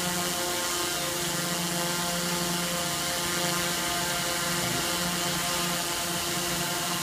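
SynDrones X8 coaxial multirotor hovering overhead, its eight propellers and motors giving a steady buzzing hum that shifts slightly in pitch as it holds position.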